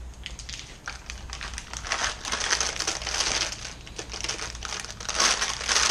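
Packaging crinkling and rustling as the parts of a tire repair kit are handled, a dense crackle that swells around the middle and again near the end.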